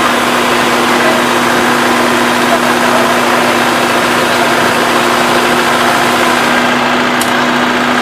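Metal World combine harvester running steadily at close range: a constant engine hum holding one pitch over the even noise of its machinery.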